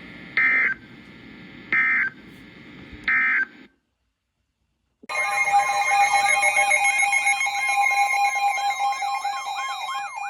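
EAS end-of-message data bursts, three short screeches about 1.4 seconds apart, closing the previous alert. After a short silence, a loud two-tone EAS attention signal begins for the next severe thunderstorm warning, with a warbling tone sweeping up and down about twice a second over it.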